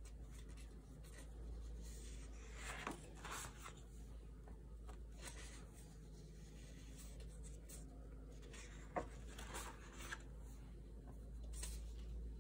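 Sketchbook paper pages being handled and turned: faint scattered rustles and rubs of paper, with a sharp tap about nine seconds in, over a low steady hum.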